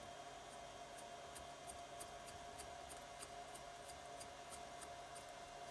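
Faint, light ticking, about three ticks a second, over a steady hum.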